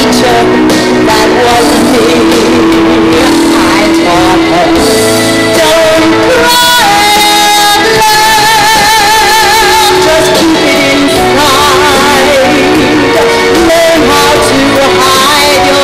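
A woman singing solo into a microphone over instrumental accompaniment, with long held notes sung with a wide vibrato.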